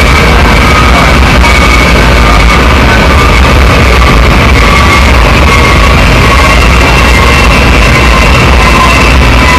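Loud, dense electronic noise music played live from a laptop: a thick wash of noise over a steady low drone, with faint tones slowly drifting in pitch above it.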